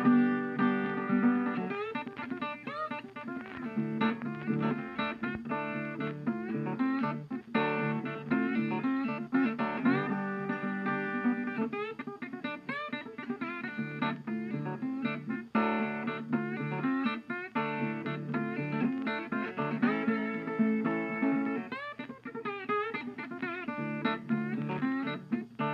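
Background music played on plucked guitar, with a steady bass line under picked notes.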